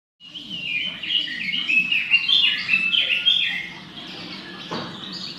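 Pekin robin (red-billed leiothrix) singing a rapid, warbling song of quick stepping notes for about three seconds, then continuing more softly. A single faint knock comes near the end.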